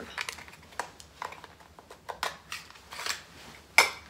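Small clicks and taps from a plastic lash tray and lash boxes being handled, about a dozen spread irregularly, with a louder knock near the end.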